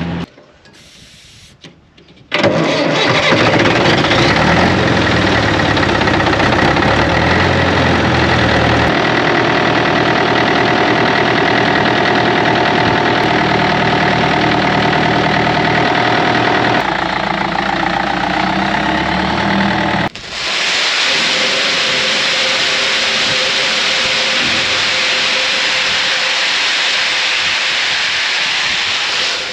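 Old tractor engine running while its front-end loader lifts a bulk bag of bait, the engine speed changing a couple of times. About twenty seconds in, a loud, steady hiss of granular snail bait pellets pouring out of the bulk bag into the steel spreader bin, with the engine idling faintly underneath.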